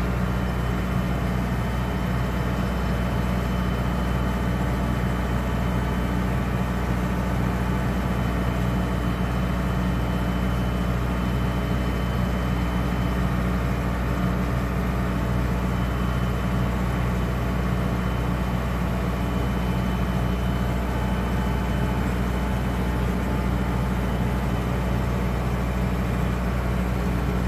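Small gasoline engine and blower fan of a homemade tree spray rig running steadily at constant speed: a low engine drone under an even rush of air.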